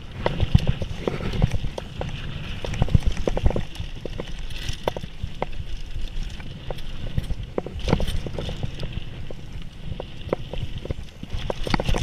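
Mountain bike riding fast down a dirt flow trail: the bike clatters and knocks over bumps and loose ground, irregular rattles again and again, over a steady low rumble of tyres and rushing air.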